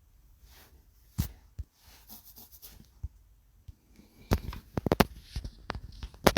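Scattered clicks and knocks of something being handled: a sharp knock about a second in, then a quick run of clicks and taps in the last two seconds.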